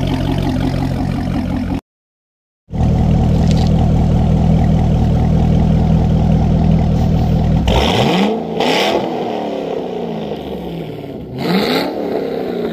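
Corvette V8 through a Borla exhaust with the resonators deleted, idling with a steady deep note, then blipped twice, about eight and eleven seconds in. Each time the pitch sweeps up and falls back to idle. The sound cuts out briefly about two seconds in.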